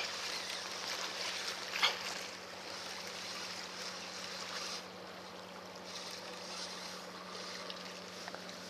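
Sea water washing against breakwater rocks, a steady soft hiss with wind on the microphone, easing slightly after about five seconds; a brief sharp sound about two seconds in.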